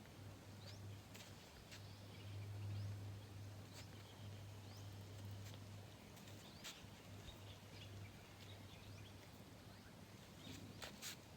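Faint outdoor ambience: scattered short rising chirps from small animals over a low steady hum, with a couple of sharp clicks near the end.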